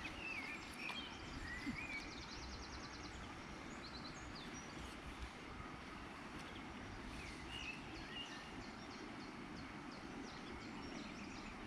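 Small birds singing: wavering whistled phrases, with a quick trill about two seconds in, over a steady outdoor background hiss.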